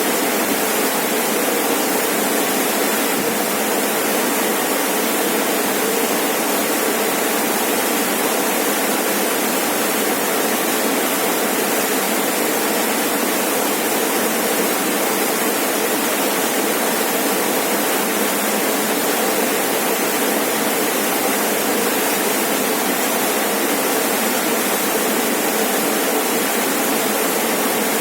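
Rainforest waterfall rushing steadily, a constant loud hiss of falling water with no breaks.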